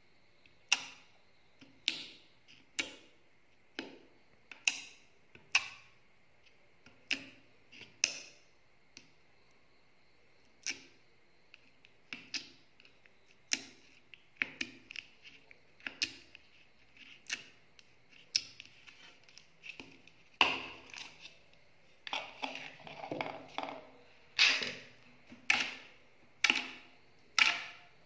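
Clear slime poked and pressed with the fingertips, making sharp wet clicks and pops about once a second, with a denser run of squelching clicks about two-thirds of the way through.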